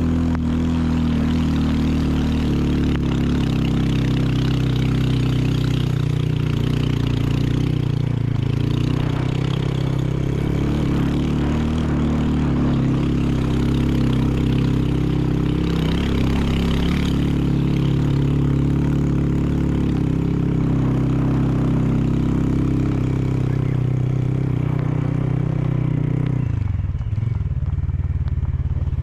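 Motorbike engine running under way, loud and continuous, its pitch dropping about three seconds before the end as the bike slows.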